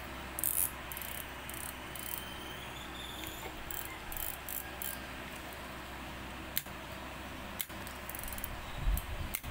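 Daiwa Regal LT1000D spinning reel being worked by hand: bursts of light mechanical clicking through the first half, then two sharp clicks. A steady low hum runs beneath.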